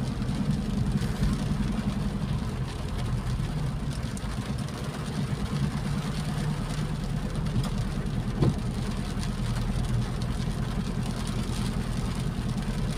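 Car engine running steadily while driving on a wet road, heard from inside the cabin, with a single short knock about eight and a half seconds in.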